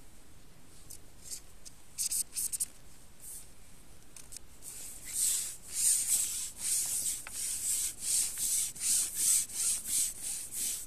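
A long carbon fishing pole sliding over camouflage clothing as it is shipped hand over hand, with a few quick scrapes at first. Then comes a steady run of swishing rubs, about two to three a second.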